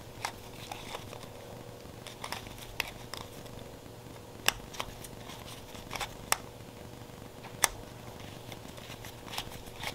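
Scattered, irregular small clicks of a flathead screwdriver tip working at the stuck main jet of a mini bike's carburetor, over a faint steady hum.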